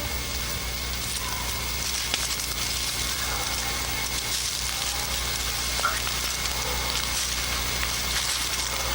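Woodchipper running: a steady engine hum under a dense, even hiss.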